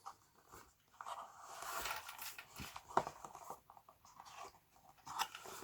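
Faint rustling of paper and cardboard packaging being handled by hand, with a few light clicks.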